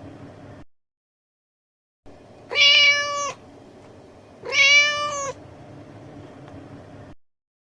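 Domestic cat meowing twice, two even-pitched meows under a second each, about two seconds apart, with spells of dead silence between clips.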